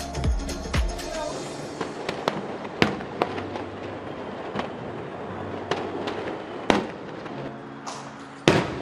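Fireworks going off in the sky: irregular sharp bangs and crackles a second or so apart, the loudest near the end.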